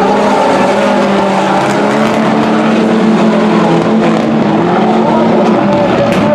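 A pack of rallycross Supercars racing through a bend together, several engines at high revs overlapping, their notes wavering and shifting in pitch as the drivers lift and accelerate.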